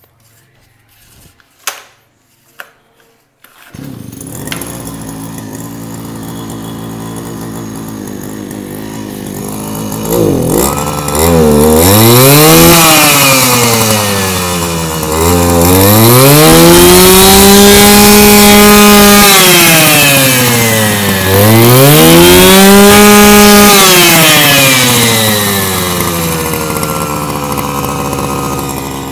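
Komatsu Zenoah BC3410 brush cutter's 34 cc two-stroke engine starting about four seconds in after a couple of clicks, then idling. It is revved up to a high whine three times, the last two held for a few seconds each, before dropping back to idle. It starts easily and runs strongly.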